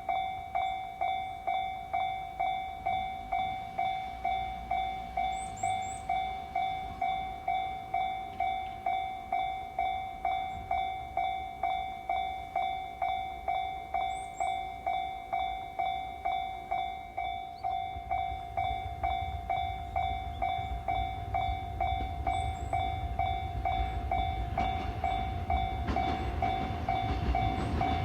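Japanese level-crossing alarm of the JR type, an electronic bell ringing one tone at about two strikes a second. A train approaches under it, its rumble building from about two-thirds of the way in and growing loud near the end.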